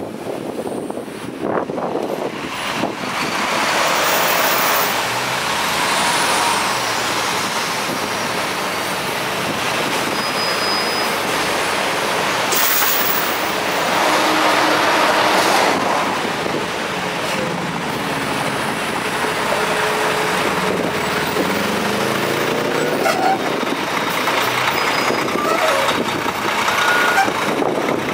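Slow-moving queue of traffic: diesel bus and coach engines running close by among cars, with short hisses of bus air brakes now and then.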